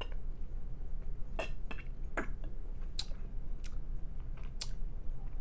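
Mouth sounds of a man drinking soda from a plastic bottle and tasting it: several sharp, separate gulps and lip smacks spread over a few seconds.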